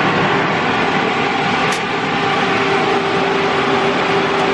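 Electric fan running loudly, a steady rushing noise with a faint hum; a single short click about two seconds in.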